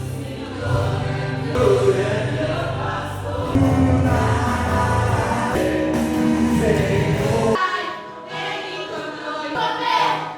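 Worship music with group singing over a band; the deep bass drops out about three-quarters of the way through.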